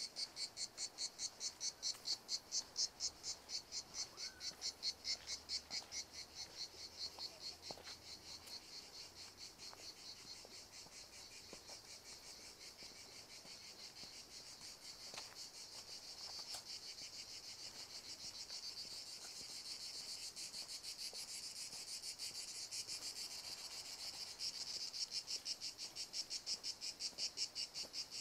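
Insects singing in the trees: a high, rhythmic pulsed trill at about three pulses a second that smooths into a steady buzz through the middle and turns pulsed again near the end. A few faint clicks come through now and then.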